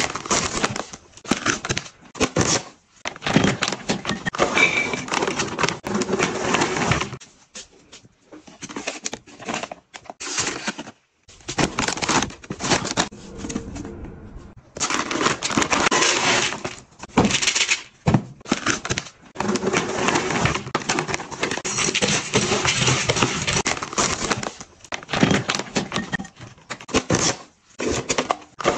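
Plastic pet-food packaging being handled: stiff pouches and a vacuum-sealed bag rustling and crinkling in irregular bursts, with short pauses between.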